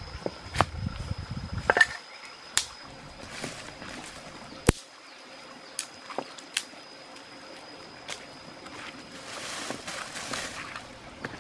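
Wet squishing of hands mixing raw chicken wings with crushed red chili in a pan, broken by scattered sharp clicks.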